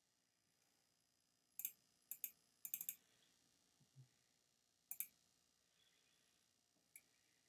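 Sharp clicks of a computer mouse, in quick twos and threes between about one and a half and three seconds in, then single clicks about five and seven seconds in.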